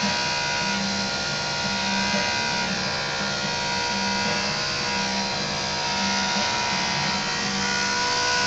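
Corded electric dog-grooming clippers running with a steady buzz as they shear a schnauzer's coat.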